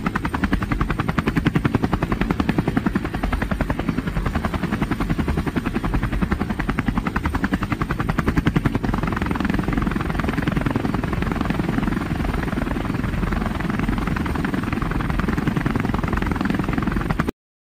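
Eurocopter EC135 helicopters in flight, the main rotors beating in a rapid, even pulse. The sound cuts off suddenly near the end.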